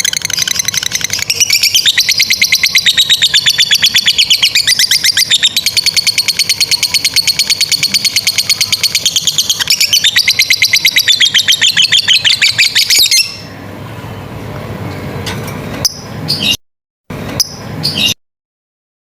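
Lovebird giving a long, rapid chattering trill ("ngekek panjang"), a fast even train of sharp notes that runs for about thirteen seconds before stopping. Afterwards there are only a few short chirps, broken by abrupt cuts to silence.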